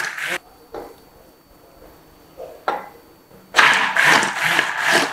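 Electric hand blender running in milk and oil as they begin to thicken into eggless mayonnaise. It stops about half a second in, leaving a quiet pause with a couple of soft knocks, then runs again from about three and a half seconds in.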